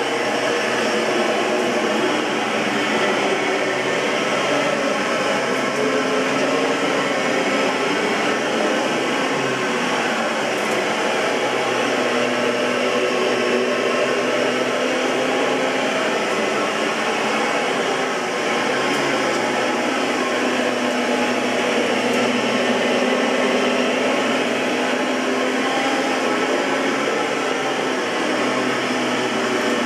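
Oreck XL21 bagged upright vacuum cleaner running steadily: a constant motor hum over a rush of air.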